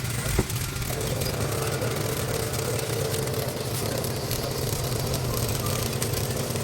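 A machine running with a steady low hum. A single knock comes about half a second in, and a steady higher tone joins about a second in.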